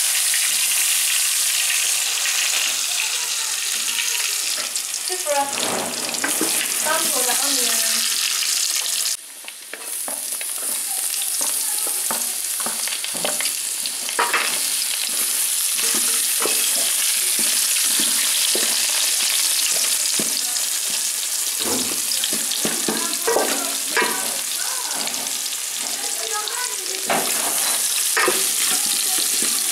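Potatoes and sliced onions sizzling steadily in a steel saucepan as they are stirred with a wooden spoon. The sizzle drops away briefly about a third of the way in.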